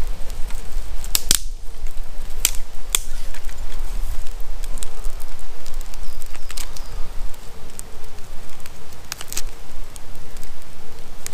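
Small campfire of twigs and sticks crackling, with irregular sharp pops, a few coming in quick clusters.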